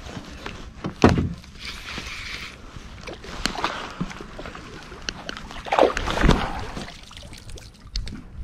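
Water splashing and sloshing as a hooked kokanee salmon is played at the surface beside a dock and guided toward a landing net, with handling knocks of gear, including a sharp knock about a second in and heavier thumps around six seconds.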